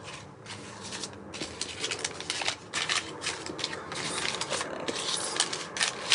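A stack of paper banknotes being handled and straightened, rustling and crinkling in quick, irregular crackles that get busier after the first second or so.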